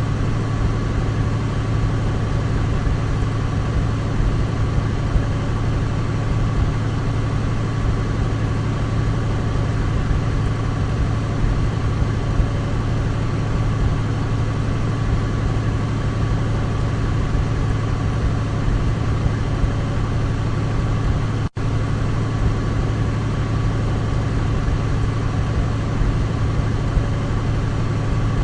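Douglas DC-3 piston engines running at a constant speed: a steady, even drone with a deep hum and a thin high tone over it. A split-second dropout about three-quarters of the way through.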